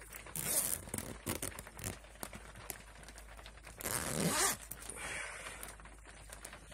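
Water poured from a glass bottle into a small cat's dish on the floor, a short splashing pour about four seconds in, with rustling handling noises around it.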